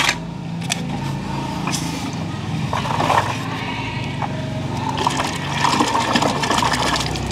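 A hand sweeping and splashing through shallow murky water, with bursts of sloshing about three seconds in and again for a couple of seconds near the end, over a steady low hum.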